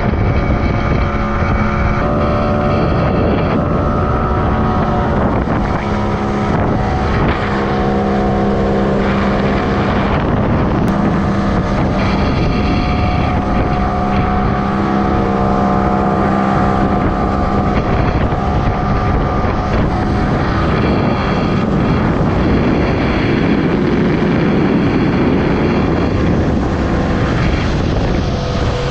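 Motorboat engine running steadily under way, its pitch shifting slightly now and then, with wind rushing over the microphone.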